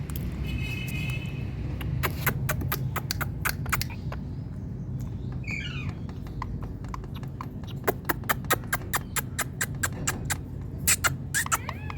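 Indian ringneck parrot giving a short call at the start, a warbling squawk about halfway through and another near the end. Runs of rapid, sharp clicks are the loudest sound, over a steady low hum.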